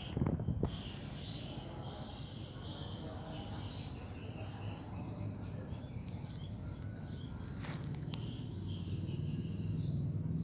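Insects, crickets or similar, chirring steadily outdoors. A brief low thump comes at the start, and two sharp clicks come about eight seconds in.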